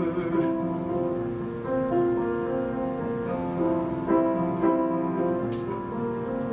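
Piano playing a slow, gentle instrumental passage of a ballad accompaniment: sustained chords with new notes struck every second or so.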